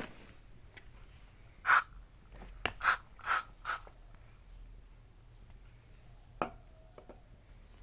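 Aerosol insecticide can sprayed in four short hissing bursts, close together, about two seconds in, followed later by a single sharp click.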